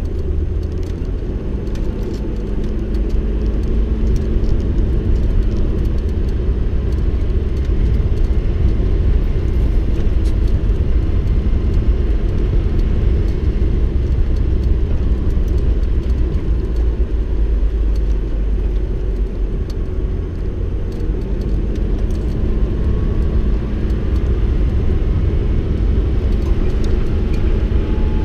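Off-road vehicle driving on a rough dirt track: a steady low rumble of engine and tyres, with scattered light rattles and clicks.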